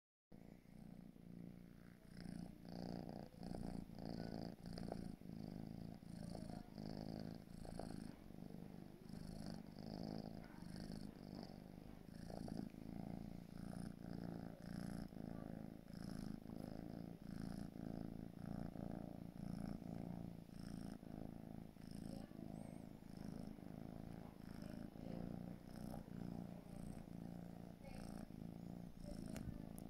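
Four-month-old British Shorthair kitten purring steadily, the purr pulsing evenly about twice a second.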